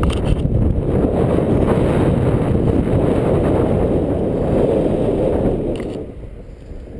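Wind buffeting the helmet-mounted camera's microphone high on a tower: a steady, rough rumble that eases briefly near the end.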